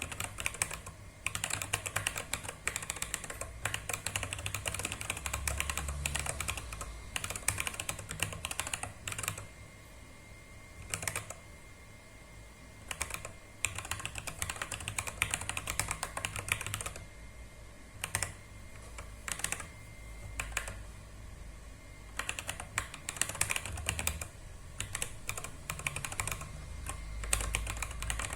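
Fast typing on a small mechanical keyboard: quick runs of key clicks, broken now and then by short pauses.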